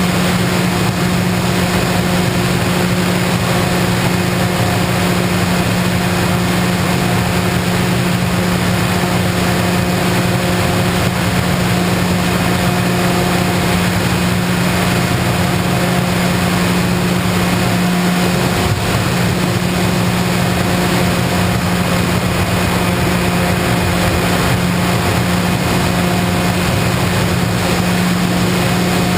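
Electric motor and propeller of an FPV model plane in flight, a steady drone holding one pitch, with rushing noise over it.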